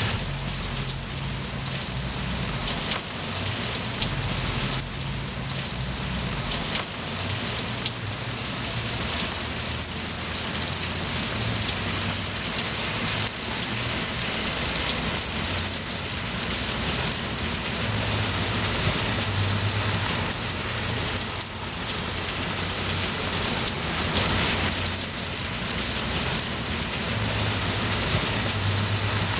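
Steady, heavy rain: a dense, even hiss with the ticks of many individual drops hitting a surface.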